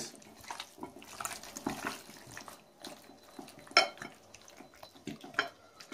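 Wet squelching and smacking of raw chicken wings being kneaded by gloved hands in an oily marinade in a glass bowl, with one sharper click about two-thirds of the way through.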